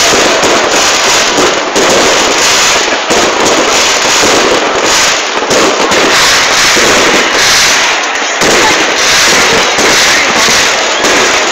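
Dense, continuous barrage of aerial fireworks: shell bursts and crackling stars overlapping with no let-up, loud throughout.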